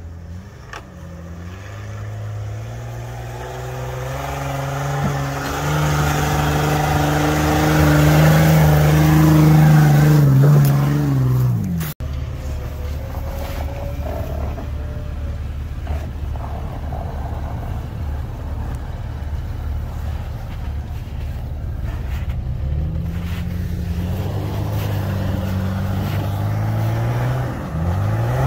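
Off-road Jeep engines working in snow. One engine gets louder and rises in pitch under throttle over the first ten seconds, then drops away. After an abrupt cut a lower engine runs steadily, and near the end the revs climb again.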